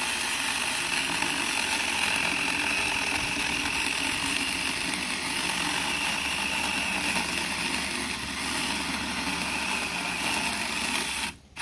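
Saker 4-inch 20-volt cordless mini electric chainsaw cutting through a thicker hickory log with a steady whine, bogging down somewhat under the load. It stops suddenly just before the end.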